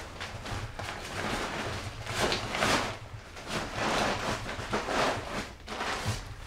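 Fabric stuff sacks and backpack nylon rustling as they are handled and pushed around inside a pack, in several uneven bursts.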